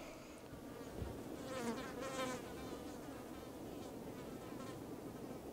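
Faint buzzing of flies in the forest, with a brief high wavering sound about two seconds in.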